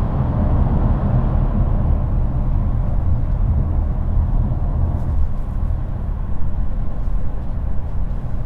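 Steady road and tyre noise with a low rumble, heard inside the cabin of a 2020 Mercedes E300e plug-in hybrid cruising at about 100 km/h.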